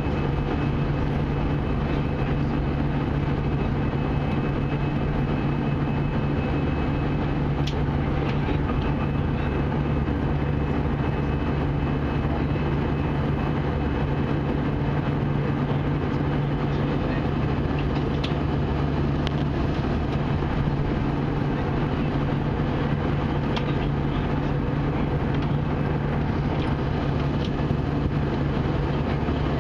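Steady drone of an Airbus A320 in flight, heard inside the passenger cabin: a constant low engine hum with a rushing airflow hiss, with no change in level.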